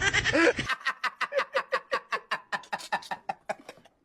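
A person laughing: a long run of short, rapid bursts, about five a second, that slows and fades away.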